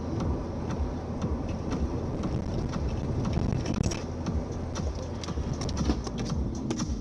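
A vehicle running, with a steady low rumble and frequent short clicks and knocks.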